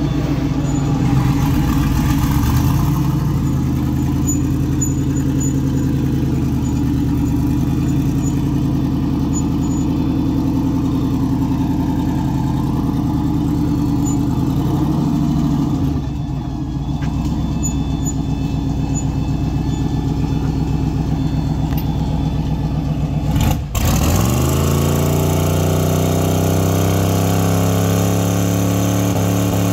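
Turbocharged LS V8 engine of an S10 pickup running steadily. After a sudden break about two-thirds of the way through, the engine note rises as it picks up revs.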